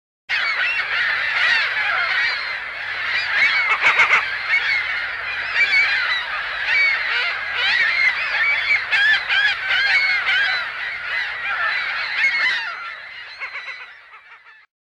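A large flock of birds calling over one another, a dense din of many short, wavering calls. It starts suddenly and fades out near the end.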